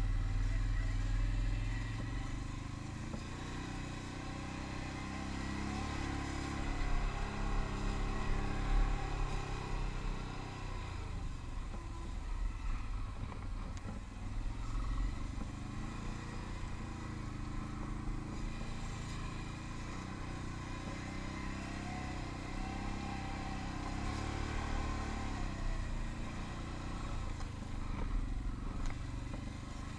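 Can-Am ATV engine running at low speed on a rough dirt trail, its pitch rising and falling as the throttle is worked on and off.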